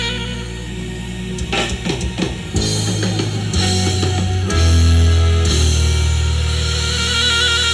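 Live band music with bass, electric guitar and drums playing, and a run of quick drum hits about a second and a half in.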